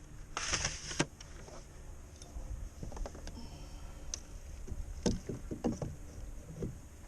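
Handling knocks and clatter on a fishing kayak, with a short rush of noise about half a second in and a cluster of knocks around five to six seconds.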